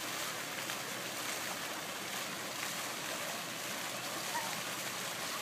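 Fountain jets spraying and splashing into a pool: a steady rush of water.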